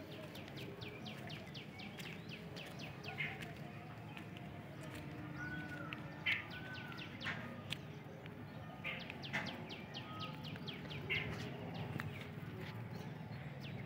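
Birds chirping in quick trains of short high calls that come again every few seconds, over a steady low background hum.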